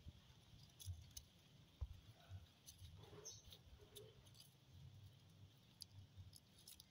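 Near silence: faint outdoor ambience with a low rumble and a few soft scattered ticks and rustles.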